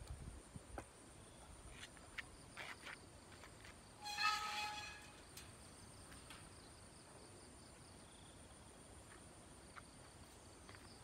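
A chicken calls once, briefly, about four seconds in, over faint outdoor background hiss with a few light clicks early on.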